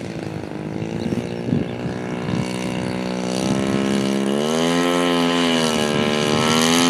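Single-cylinder two-stroke Sachs 61cc petrol engine of a one-third-scale RC Taylorcraft running below half throttle as the model rolls across grass. Its pitch climbs about four seconds in, then wavers up and down, and it grows steadily louder.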